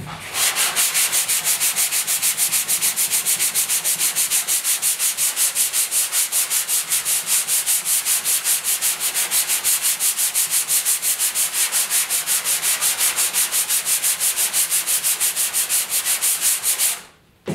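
Sandpaper on a 3M hand sanding block rubbed quickly back and forth over body filler on a steel truck hood, an even, rapid run of scraping strokes that stops abruptly near the end: dry block-sanding to blend the filler flush with the panel.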